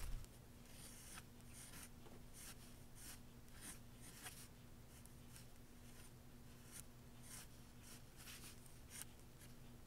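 Faint scratching of a pencil on paper in short quick strokes, about two a second, as lines are sketched. A faint steady hum underneath.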